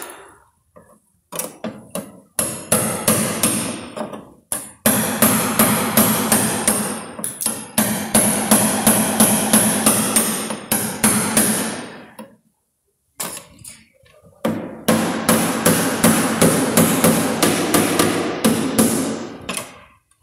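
A hand tool chipping hardened body filler off a car's steel rear quarter panel: rapid repeated sharp strikes as the old filler cracks away. Scattered strikes in the first few seconds, then two long fast runs of strikes with a short pause between them.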